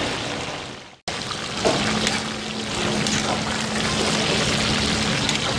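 Chicken pieces deep-frying in hot oil in a karahi, a steady sizzle. The sound fades out and breaks off about a second in, then the sizzle comes back with one sharp clink and a low steady hum under it.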